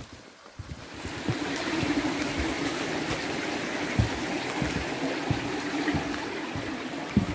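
Flowing water, like a stream or rapids, fading up about a second in and then running steadily, with a few low thuds.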